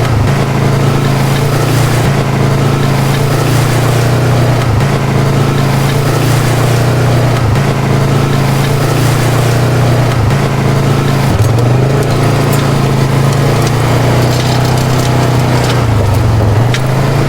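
Polaris RZR 570 side-by-side's single-cylinder engine running steadily under load, its low drone dipping briefly several times as the throttle eases and picks up.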